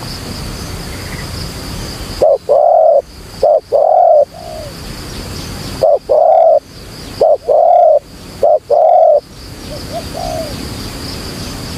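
Spotted dove cooing: two loud song phrases, each of several hoarse coo notes, the first starting about two seconds in and the second about six seconds in.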